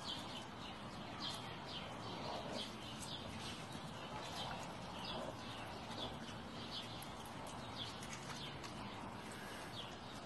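Short, high-pitched chirps repeated irregularly, roughly twice a second, over a steady outdoor background hiss.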